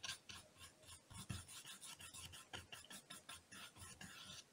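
Flat bristle brush scrubbing acrylic paint across primed hardboard in repeated horizontal strokes, a faint scratchy rasp with each stroke, several a second.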